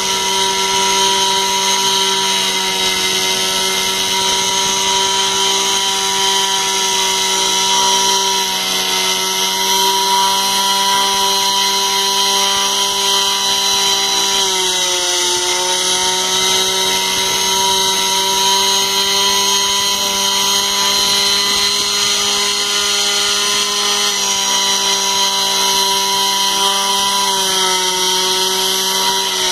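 Small CNC router spindle running with a steady whine as its end mill carves a relief into wood. Its pitch shifts slightly about halfway through and again near the end, as the cutting load changes.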